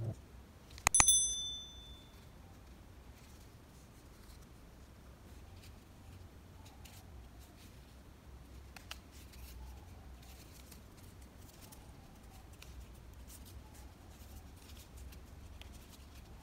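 A click and a bright bell ding about a second in: the sound effect of a subscribe-button animation. After it, faint rustling and creasing of origami paper being folded by hand.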